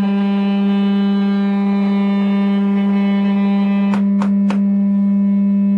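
A steady low test tone, near 200 Hz with faint overtones, from a Fender Blues Deluxe Reissue amplifier driven by a sine-wave oscillator. A few short clicks come about four seconds in.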